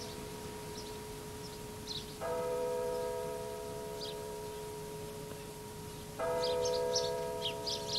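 A large bell tolling slowly: two strokes about four seconds apart, each one ringing on long after it is struck. Short high chirps sound between the strokes.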